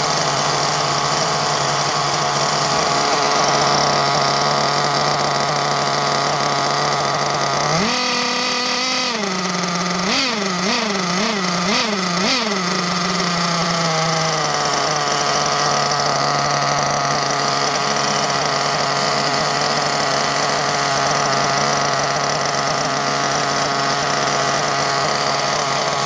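Nitro glow engine of a 1/8-scale off-road RC car idling steadily, then revved about eight seconds in: one longer blip of the throttle followed by four quick blips, before it settles back to a steady idle.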